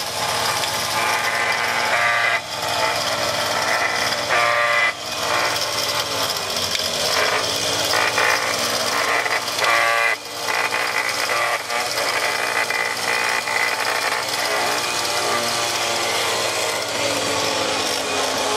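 Mile Marker winch on a Jeep Wrangler TJ reeling in synthetic winch rope under load: a steady mechanical whirr over a low hum, its pitch shifting now and then.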